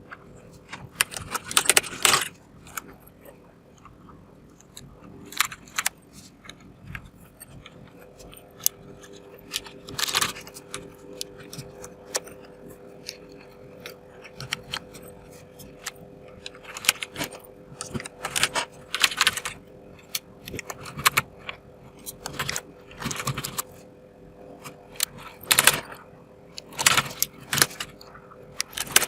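Plastic PBT keycaps clicking and clattering as they are handled and pressed back onto the mechanical keyboard's switches. The clicks are sharp and irregular, some single and some in quick clusters, over a faint steady hum.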